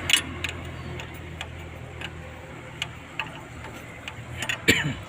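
Scattered sharp clicks and light metallic taps of hand tools and parts being handled on an excavator engine, with a louder cluster of knocks near the end, over a low steady hum.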